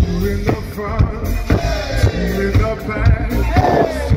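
Live pop-rock band playing through a loud festival PA: drum kit keeping a steady beat of about two hits a second under guitar and bass, with a voice singing near the end.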